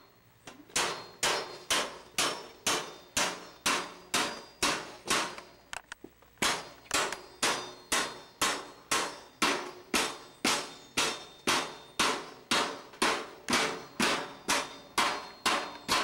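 Steady metallic banging, about two and a half sharp strikes a second, each ringing briefly, with a short pause about six seconds in.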